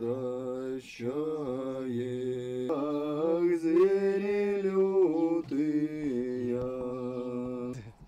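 Slow, chant-like a cappella singing by several voices, moving together in long held notes. It cuts off abruptly near the end.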